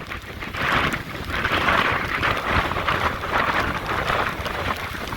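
Hurricane winds blowing hard, rumbling on the microphone, with a hiss that swells and eases in gusts every second or so.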